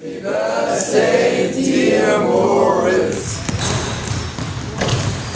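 A group of young people's voices for the first three seconds, then a few basketballs bouncing on a hardwood gym floor with voices in the background.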